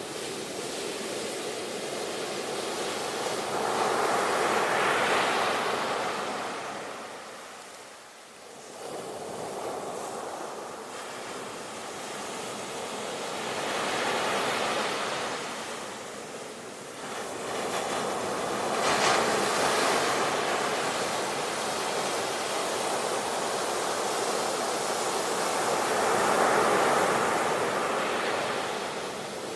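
Ocean waves breaking on a shore, the surf rising and falling in slow swells of rushing water, with a brief lull about eight seconds in.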